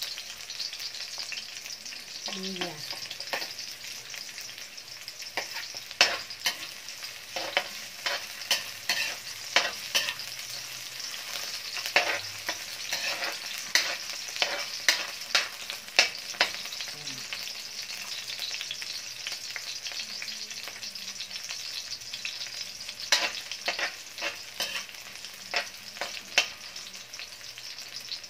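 Sliced onions sizzling in hot oil in an aluminium wok, with a metal spatula clinking and scraping against the pan at irregular intervals as they are stirred.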